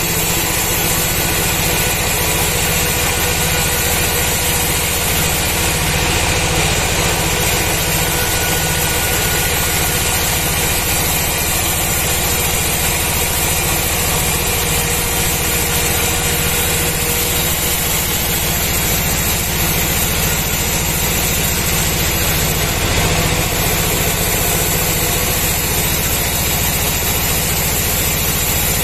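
A sawmill band saw running steadily as it cuts lengthwise through a large kruing (keruing) log, with a continuous machine drone throughout.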